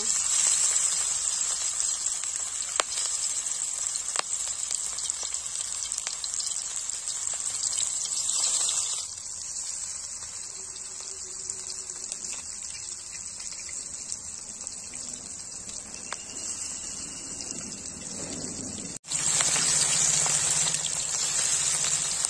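Gram-flour-battered prawn fritters sizzling as they deep-fry in hot oil in a kadhai, a dense hiss with scattered small pops. The sizzle softens about nine seconds in and comes back loud after a sudden instant's break near the end.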